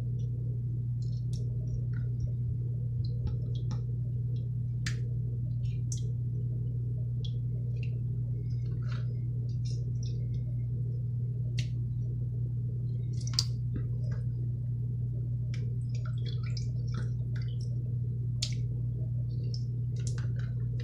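Canned peaches being cut up with a knife in a bowl of their own juice: scattered small wet squishing clicks, over a steady low hum.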